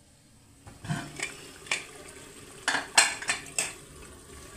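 Metal lid and ladle clinking and scraping against an aluminium pressure-cooker pot as browned chicken masala is uncovered and stirred: about seven sharp clinks, starting about a second in.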